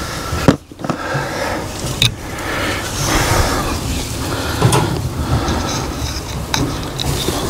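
Rustling and scuffling in straw as a young goat is held down for dosing, with several sharp clicks and knocks, the loudest about half a second in.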